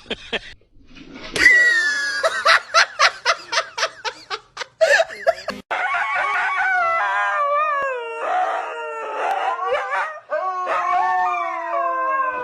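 A dog yipping rapidly, about four short yips a second, then breaking into a long wavering howl that slides up and down in pitch.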